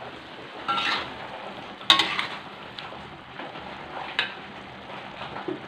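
Stir-fry of green beans, tempeh and squid sizzling in a metal wok while a metal spatula stirs it. The spatula clanks against the wok a few times, loudest about two seconds in.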